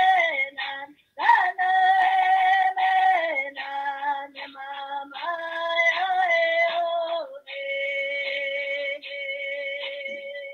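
A woman singing solo, a song of blessing for Mother Earth, in phrases of long held notes broken by short pauses, ending on one long steady note. Heard through a video call.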